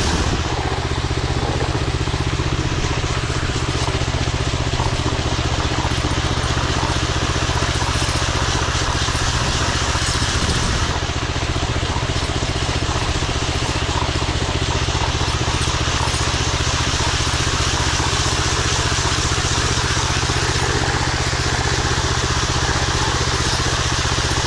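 Power trowel's petrol engine running steadily while its blades float and finish a fresh concrete slab.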